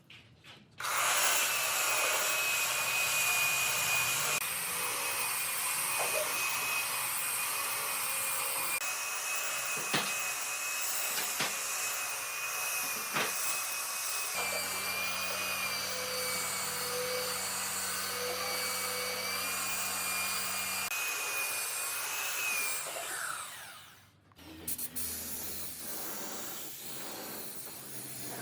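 An electric power tool running steadily on wood, with a high motor whine that wavers slightly under load. It starts about a second in and cuts off suddenly a few seconds before the end, leaving a quieter hum.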